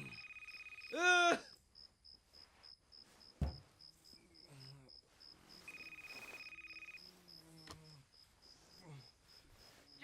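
Crickets chirp steadily in the background. A telephone rings twice, first at the start and again about six seconds in. About a second in comes a man's strained moan that slides up and down in pitch, and a single low thump sounds about a third of the way through.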